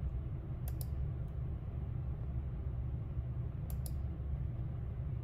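Computer mouse clicks: a quick pair about a second in, a single click just after, and another quick pair near four seconds, over a steady low room hum.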